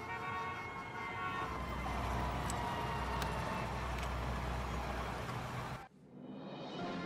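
Film soundtrack: sustained music notes give way to a louder noisy swell with a deep low drone and a slowly falling tone. It cuts off abruptly about six seconds in, and soft music resumes just after.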